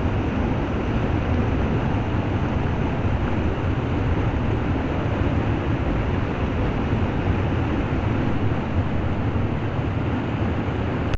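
Steady rushing noise of heavy rain and running rainwater, even and unbroken, cutting off suddenly at the very end.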